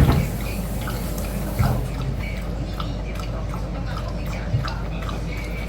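Pet water fountain running: water trickling and dripping in many small irregular drops over a steady low hum.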